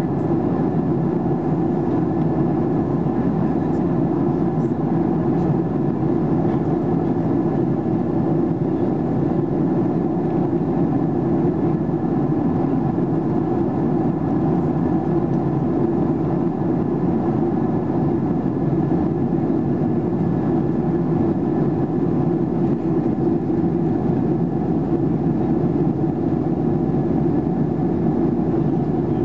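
Steady cabin noise inside a Boeing 737-800 in flight: the low drone of its CFM56 turbofans and the rush of air past the fuselage, with a few faint steady whines above it.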